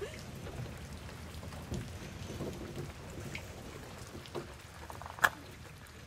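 Light rain pattering on the car, heard from inside: a steady hiss with scattered soft ticks, and one sharp click about five seconds in.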